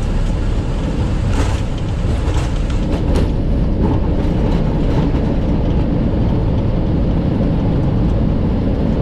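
Steady loud rumble on the flight deck of a Boeing 737-800 rolling out on the runway after landing, with a couple of brief clicks about one and a half and three seconds in.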